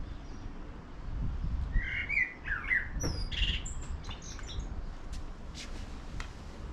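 A bird chirping and squawking in a quick run of short calls about two seconds in, followed later by a few light clicks.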